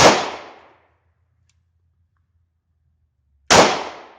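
Two 9mm shots from a German P.08 Luger pistol, about three and a half seconds apart, each trailing off over most of a second.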